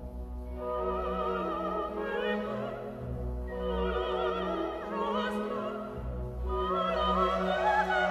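Opera music: a singer holding long, wavering notes with heavy vibrato over an orchestral accompaniment, the voice entering about half a second in.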